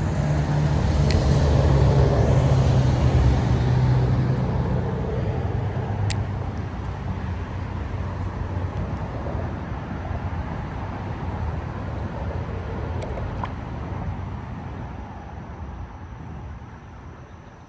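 A motor vehicle's engine running, loudest in the first few seconds and then fading gradually away, with a few sharp clicks over it.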